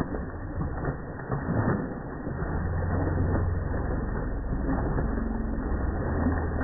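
Slow-motion audio of a dog splashing through shallow river water: the water sound is slowed down into a deep, muffled rush with a few low knocks.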